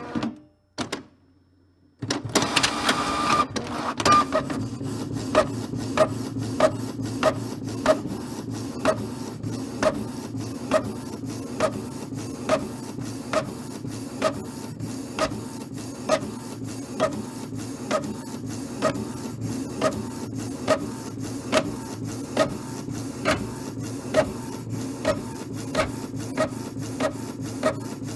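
Printer running: after a brief silence it starts up with a whirring about two seconds in, then settles into a steady hum with a regular click about every three quarters of a second.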